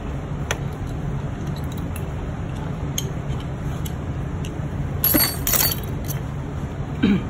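Light metallic clinks of tools and parts against a bare Aprilia RSV4 engine, over a steady low hum, with a sharper pair of clinks about five seconds in.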